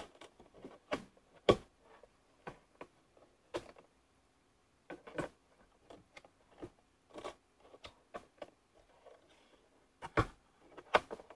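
Cardboard jigsaw puzzle pieces being picked up, shuffled and set down on a tabletop: scattered light taps and clicks, the loudest about a second and a half in and again about ten seconds in.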